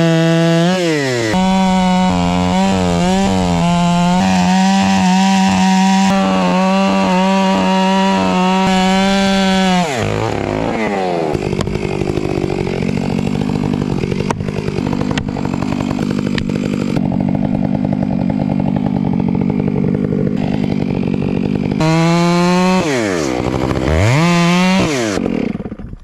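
Chainsaw running at full throttle, its revs dipping and rising a few times, then pulling down lower and rougher under load for about twelve seconds in the middle as it cuts the face notch into a large maple trunk. It revs freely again with a couple of quick dips near the end, then is let off.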